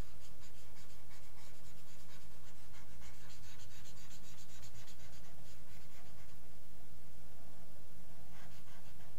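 Faint, scratchy rubbing and rapid ticking from a pointing device being dragged while painting on a computer. It runs for the first six seconds or so and comes back briefly near the end, over a steady low hum.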